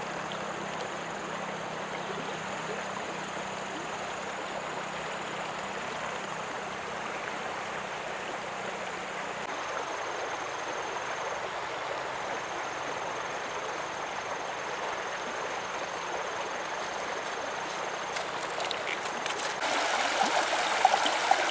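River water running with a steady rushing sound; near the end it grows louder as the water pours over the rocks of shallow rapids.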